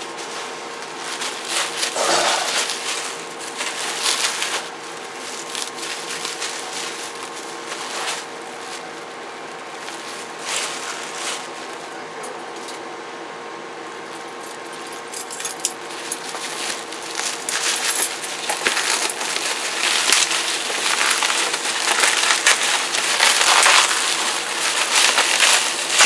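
Plastic bubble wrap crinkling and rustling as wrapped CB radios are handled and unwrapped, with scattered crackles and taps. It gets busier and louder over the last ten seconds.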